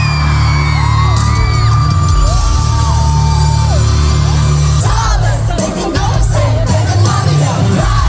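Loud pop music with heavy bass and a sung vocal line, with shouts and whoops over it. About five seconds in, the music turns busier and more percussive.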